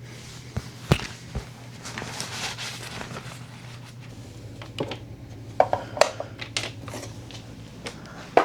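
Gear being handled and packed: scattered clicks, knocks and rustling, with a few sharper clinks about six seconds in.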